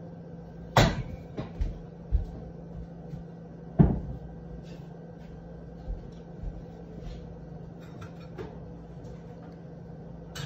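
Knocks and clatters of kitchen clean-up, tagged as cupboard doors opening and closing: a sharp knock about a second in and a louder one just before four seconds, with a few lighter knocks between and after, over a steady low hum.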